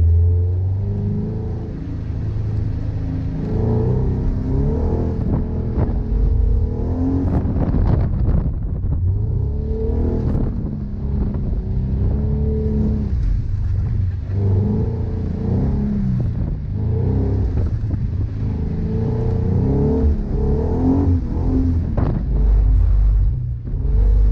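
Subaru BRZ's flat-four boxer engine heard from inside the cabin, revving up and dropping back again and again as the car is driven hard through a course.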